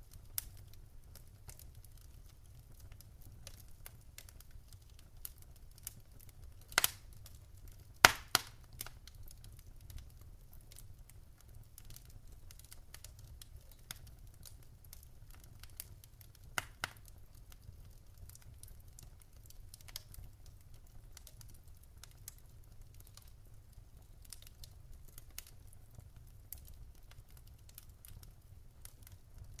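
Faint scattered clicks and crackles over a low steady rumble, with a few sharper clicks about seven and eight seconds in and again around seventeen seconds.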